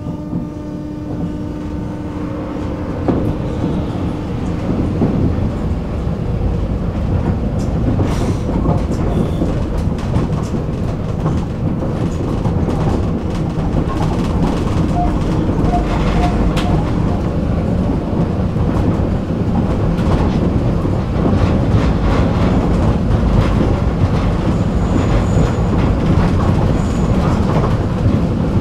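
A tram running on its rails, heard from on board: a steady rumble of wheels with clacking over the track, growing louder over the first few seconds as it picks up speed.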